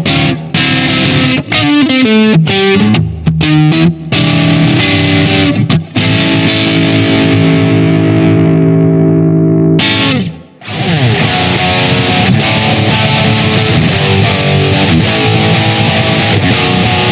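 SQOE SETL960 electric guitar through its Alnico humbucker pickups, played with distortion. It starts with choppy riffing in which a few notes slide down. A chord is left to ring for several seconds, then there is a short break about ten seconds in, followed by fast continuous riffing.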